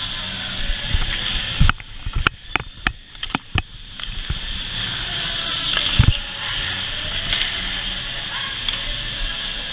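Ice skates scraping and carving across a rink, heard up close from a skater's head-mounted camera as a steady hiss. About two seconds in the hiss drops and a quick run of sharp clicks and knocks follows, with another thump about six seconds in.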